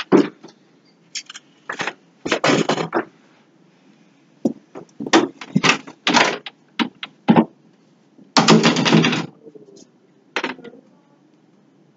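Irregular clunks, knocks and short scrapes of furniture and objects being moved about, with one longer, louder scrape lasting about a second near the middle of the second half.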